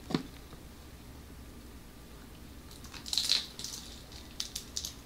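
Quiet eating sounds: crunchy bites of fried crab rangoons (cream-cheese and imitation-crab filled wontons) and a few sharp clicks, with the loudest crunch about three seconds in.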